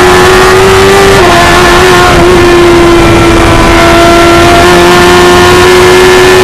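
Stohr F1000 race car's 1000cc motorcycle engine heard onboard, running loud with a nearly steady pitch that dips slightly about a second in and creeps up a little near the end.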